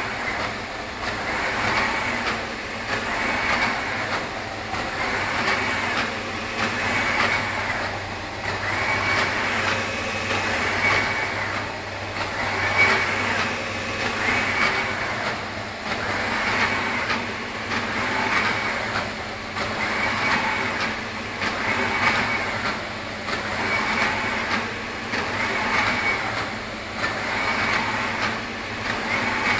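Océ Arizona 350 XT UV flatbed printer running, its print carriage sweeping back and forth over the bed. A whirring pass swells and fades about every two seconds over a steady low hum.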